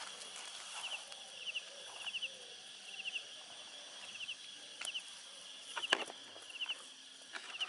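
A small creature chirping steadily in the background: short trills of three or four quick high notes, repeated every half second or so. A few sharp clicks cut in about five and six seconds in.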